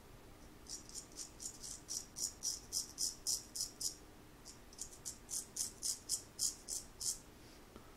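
Straight razor scraping through lathered stubble on the neck in short, rapid strokes, about four a second, in two runs with a brief pause about halfway through.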